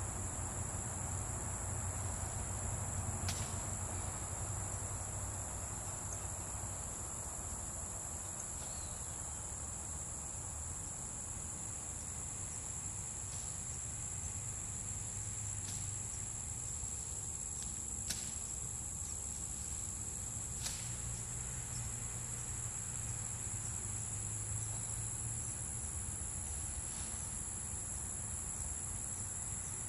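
A steady, shrill chorus of field insects such as crickets, with a low rumble underneath and a few sharp clicks or knocks scattered through it.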